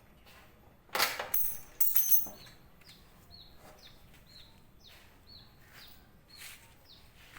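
Two loud noisy bursts about a second apart, then a bird chirping over and over, about two short falling chirps a second.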